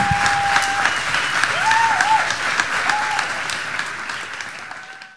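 Audience applauding, with a few voices over the clapping; the applause fades steadily and is gone just before the end.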